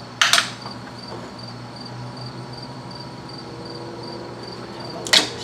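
Two brief clattering scrapes of tools or parts, one right at the start and one near the end, over a faint, steady, high chirp that repeats about three times a second.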